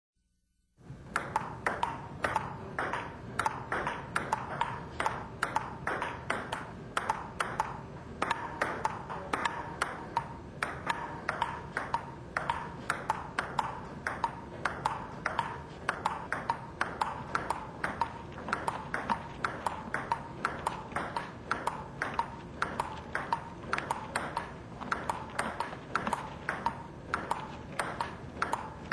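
Celluloid table-tennis ball clicking back and forth off the table and bats in a long, quick, regular rally, several hits a second, starting about a second in.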